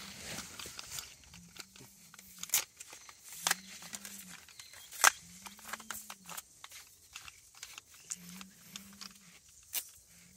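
Sharp plastic clicks and knocks as a threaded poly pipe valve joiner and its red-capped fitting are handled and screwed together by hand. Under them, four faint low tones come and go, each rising and falling in under a second.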